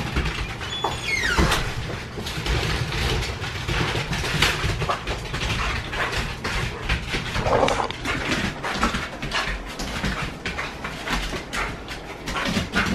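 Two dogs moving about on a tiled floor, their claws clicking and scrabbling, with a short falling squeal about a second in.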